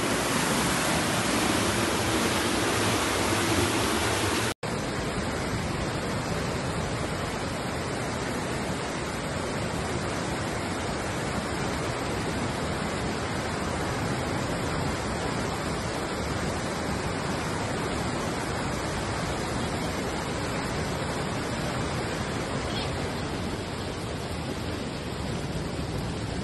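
Floodwater rushing in a torrent along a street, a steady, heavy rush of water. About four and a half seconds in the sound cuts out for an instant and goes on as a second, similar stretch of rushing water.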